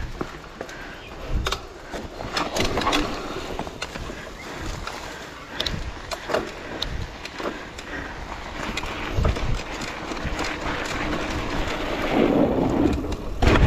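Off-road bike riding down a rough dirt trail: a steady rush of wind and tyre noise with many quick knocks and rattles, swelling louder near the end.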